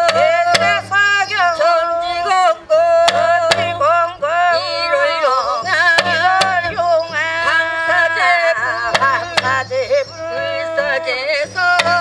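Korean shaman ritual (gut) music: a wavering, sliding melody with heavy vibrato over scattered strokes of a barrel drum and hand cymbals.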